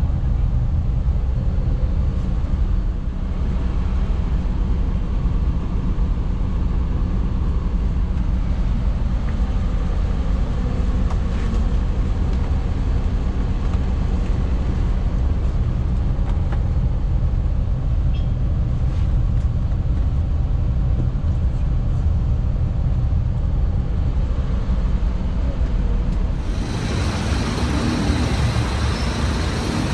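A vehicle engine running steadily, a continuous low rumble. Near the end, a louder, even rushing hiss abruptly joins it.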